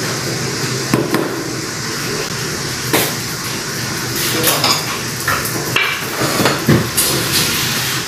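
Pots and metal utensils clinking and knocking about six times at uneven intervals, over a steady background hiss.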